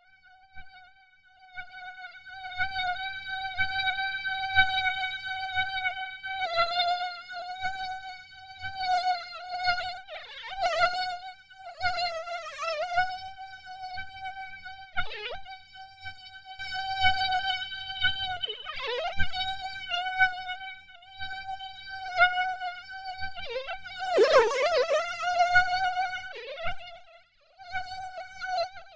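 Mosquito in flight: a high, steady wingbeat whine with many overtones. It swells louder several times with brief dips in pitch, the strongest near the end, and breaks off briefly just before the end.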